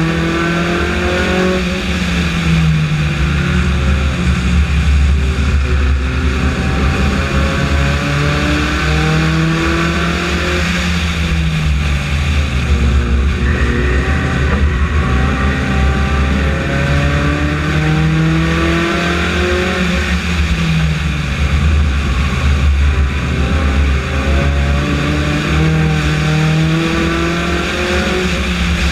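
Onboard sound of a Honda four-cylinder F4 race car's engine at racing speed. Its pitch climbs along each straight and falls off into each turn, about four times over, over steady wind and road noise.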